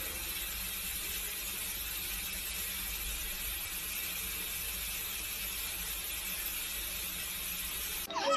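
Bathroom sink faucet running steadily, its stream of water falling onto a cat lying in the basin. It stops abruptly near the end.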